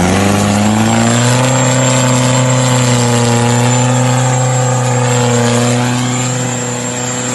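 Off-road vehicle's engine revving up over the first second, then held at high, steady revs. The revs sag slightly around the middle and cut off abruptly near the end.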